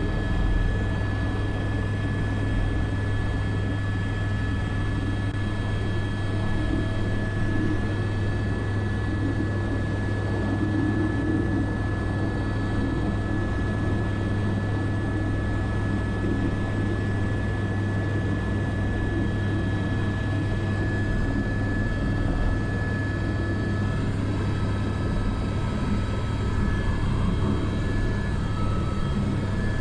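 Airbus AS350 B3 (H125) helicopter heard from inside the cockpit in flight: the single-turbine engine and rotor make a steady, deep drone with a thin, constant high tone over it.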